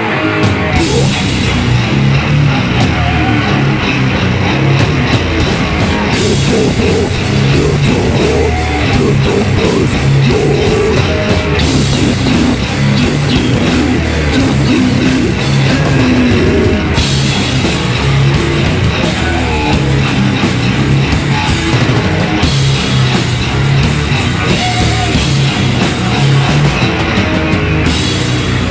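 A live heavy band playing loud and dense, with distorted electric guitars, bass and drum kit. Stretches with a bright cymbal wash come in and drop out several times.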